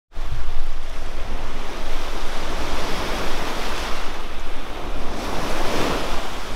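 Sea waves washing onto a beach, surging about three seconds in and again near the end, with wind rumbling on the microphone.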